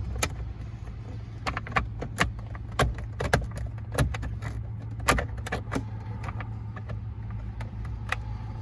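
Irregular sharp plastic clicks and knocks as a plastic steering-column trim piece is pushed and worked to clip it into place, over a steady low hum.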